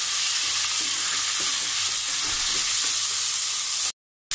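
Rice and vermicelli sizzling in hot oil in a stainless steel pot, stirred with a wooden spoon as they sauté for pilaf. The steady sizzle drops out abruptly for a moment near the end.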